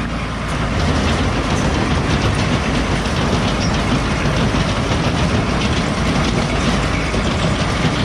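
TMR (total mixed ration) feed mixer wagon running while towed by a tractor and unloading feed into the bunk: a loud, steady mechanical rumble and rattle that comes up about half a second in and then holds.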